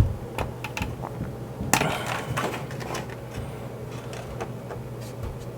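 Hard plastic clicking and tapping as hands work at a stubborn part on a vintage toy jet's plastic shell, with one louder clack about two seconds in.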